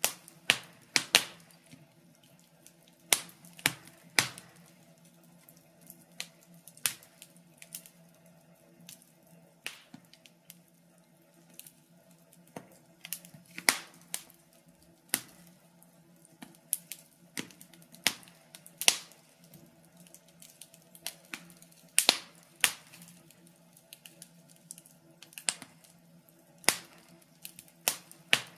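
Wood fire crackling in a fireplace: irregular sharp pops and snaps, some single and some in quick clusters, over a faint steady low hum.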